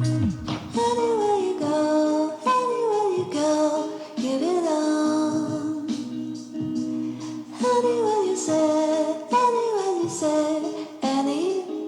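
Background music: a sung melody with gliding, ornamented phrases over steady held accompaniment tones.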